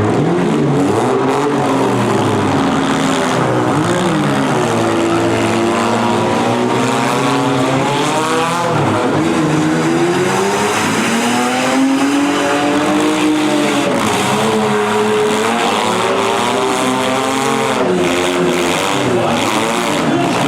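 Several demolition derby cars' engines revving up and down at once, their pitches rising and falling independently and crossing over one another.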